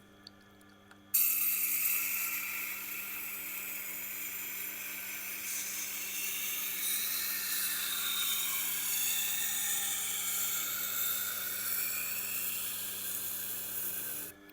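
Knife blade being ground edge-leading on a Tormek sharpener's turning wheel: a loud, hissing grind that starts suddenly about a second in, its pitch shifting as the blade is pushed along the wheel, over a steady low motor hum, and cuts off abruptly near the end.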